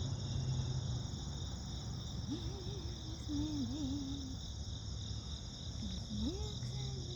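Steady chorus of insects trilling without a break at several high pitches at once. Two short, wavering low voiced sounds come through it, about two seconds in and again near the end.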